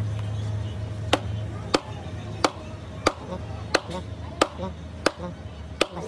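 Sledgehammer blows on a wooden block held against a steel bushing, driving the bushing into a hydraulic breaker's housing: eight sharp knocks, about one every two-thirds of a second, starting about a second in, over a steady low hum.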